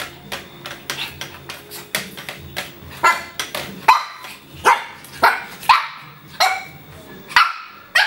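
Three-month-old Shih Tzu puppy yipping and barking at a hair dryer in quick short barks, two or three a second, getting louder from about three seconds in.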